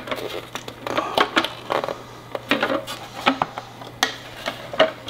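Plastic housing of a Verizon 4G LTE home-internet gateway clicking, knocking and scraping in irregular bursts as its outer case is slid and worked off by hand, sticking partway where tape inside catches on a button.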